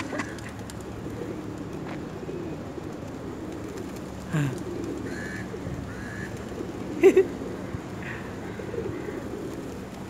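A large flock of feral rock pigeons cooing together in a steady, overlapping murmur. A couple of short louder sounds come from close by, the loudest a quick double sound about seven seconds in.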